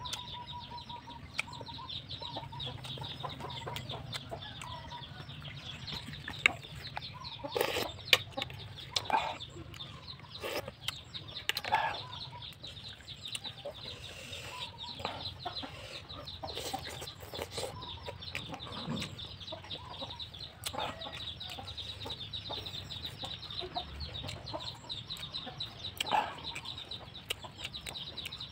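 Outdoor ambience of chickens clucking now and then over a steady high-pitched hiss, with scattered short smacks and clicks from a man eating with his fingers.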